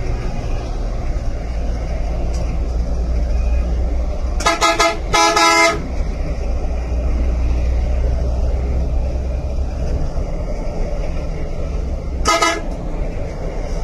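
Steady drone of a bus's engine and road noise heard from inside the cabin at highway speed. A vehicle horn blasts twice in quick succession about a third of the way in, and once more, briefly, near the end.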